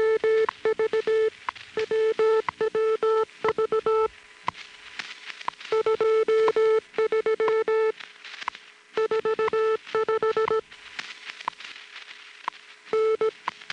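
A WWV time-signal tone received on a small portable shortwave radio: a steady mid-pitched tone that breaks on and off in uneven stretches, with sharp clicks throughout.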